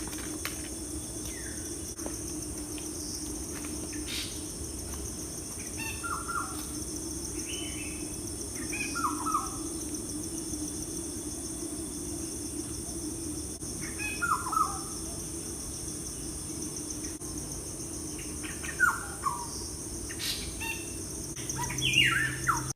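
Birds chirping in short falling calls every few seconds, over a steady high insect buzz and a low steady hum.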